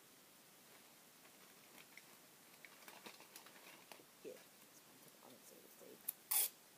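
Faint scattered clicks and taps of small paper and plastic craft pieces being handled on a table, with one brief, much louder noisy burst about six seconds in.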